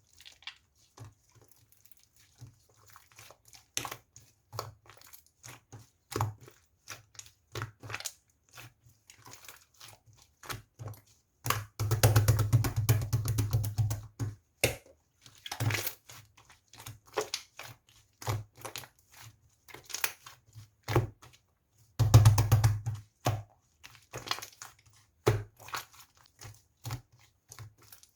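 Close, crisp crunching and crackling from something crunchy being handled: scattered sharp clicks, with two dense bursts of crackling, one about twelve seconds in lasting a couple of seconds and a shorter one near twenty-two seconds.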